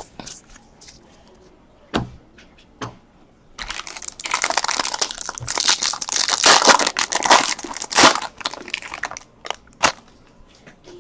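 Foil wrapper of a Bowman Draft baseball card pack crinkling and tearing as it is pulled open, a dense spell of crinkling lasting about five seconds. Two sharp taps come before it and another after.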